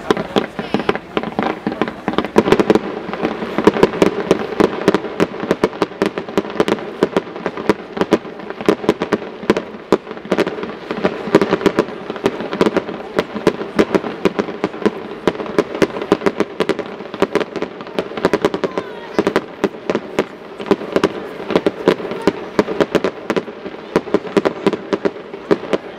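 Aerial fireworks display: a dense, unbroken barrage of shell bursts and crackling, many bangs every second.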